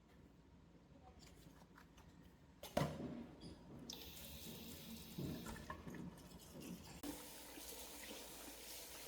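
A single knock just under three seconds in, then water running from a tap into a sink from about four seconds in, its steady hiss growing stronger about seven seconds in.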